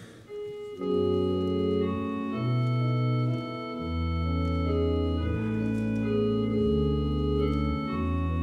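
Church organ playing sustained chords over held pedal bass notes, the chord changing every second or so: the introduction to the responsorial psalm. A single knock comes just before the organ enters.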